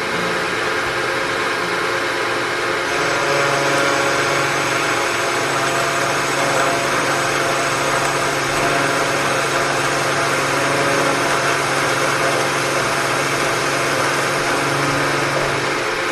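Metalworking machine tool running steadily, a continuous whir with several steady tones.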